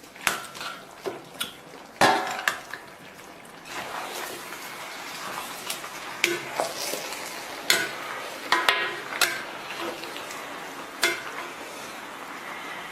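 Metal utensils clinking and scraping against an iron stew pot, a dozen or so sharp knocks with the loudest about two seconds in, over a steady sizzling hiss that comes in about four seconds in.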